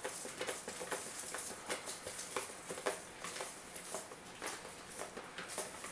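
Folded paper slips tumbling and rustling inside a bowl as it is shaken and swirled, a run of many small, irregular ticks and scratches.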